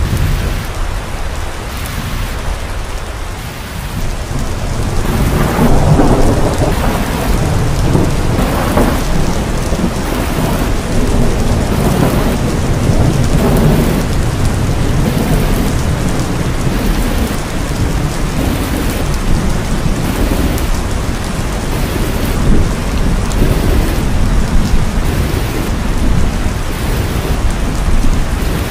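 Wind buffeting the microphone: a loud, continuous low rumble that swells in gusts.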